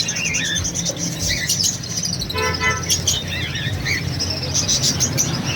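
A flock of small caged birds (budgerigars, cockatiels and lovebirds) chirping and twittering continuously over a steady low traffic rumble. A short horn-like toot sounds about two and a half seconds in.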